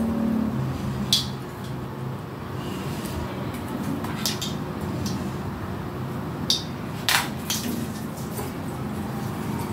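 A few light, sharp clicks and taps of ornaments being handled on an artificial Christmas tree, over a steady background noise.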